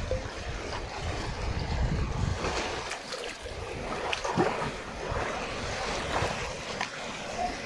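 Water splashing and sloshing as a person swims through a shallow rock pool, with surf and wind noise on the microphone.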